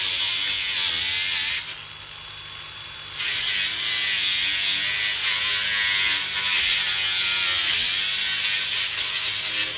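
A small electric motor tool buzzing steadily. It cuts out for about a second and a half a couple of seconds in, then starts again.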